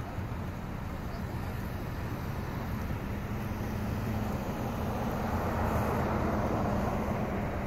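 Street traffic: a steady low engine hum with road noise that swells as a car drives past, loudest about five to six seconds in, then eases off.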